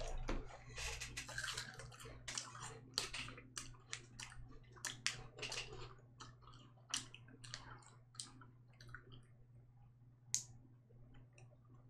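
Faint chewing and mouth noises of someone eating a piece of candy: soft, irregular clicks and wet smacks that thin out toward the end, with one sharper click about ten seconds in, over a low steady hum.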